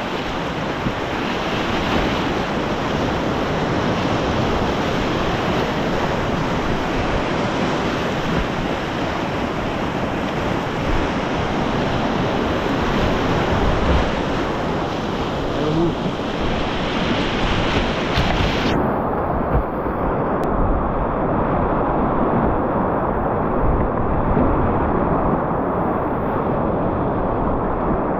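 Whitewater rapids rushing steadily around a kayak. About two-thirds of the way through, the sound abruptly turns dull and muffled, losing its hiss, as water washes over the microphone.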